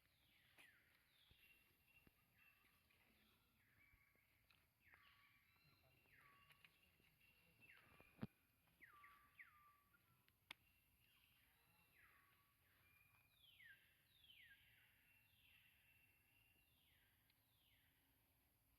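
Faint bird calls: many short whistles, each sliding steeply down in pitch, repeated throughout. Two sharp clicks come a couple of seconds apart in the middle.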